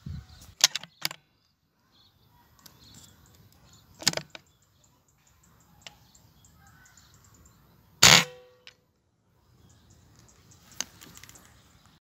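Silenced PCP air rifle (Mauser OD28 with a Siliwangi OD32 silencer) firing: one sharp shot about eight seconds in, the loudest sound, with a short ringing tail. Shorter sharp cracks come earlier, two in quick succession within the first second and one about four seconds in, and a smaller one near the end.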